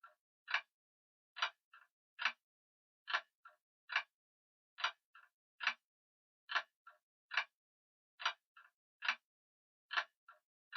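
Grandfather clock ticking: sharp, even tick-tock clicks in pairs about every 1.7 seconds, each first tick followed closely by a fainter click, with silence between.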